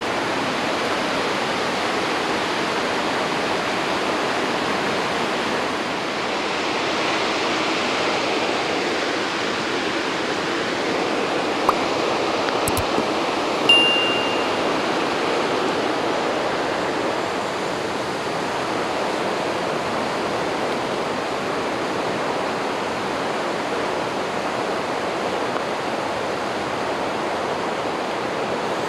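A river running over shallow rocky rapids: a steady rush of water. A couple of faint clicks come just before halfway, and a brief high-pitched tone sounds about halfway through.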